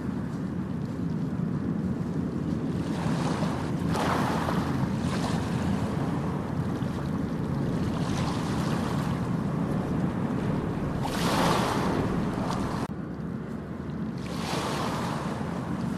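Ocean waves breaking on a beach, a steady wash of surf with several louder swells of hiss, the strongest about two-thirds of the way through and ending abruptly, over a low rumble of wind on the microphone.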